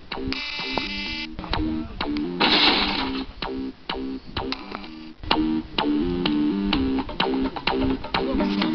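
Background music: short pitched notes in a quick, steady repeating pattern, with a brief noisy swell about two and a half seconds in.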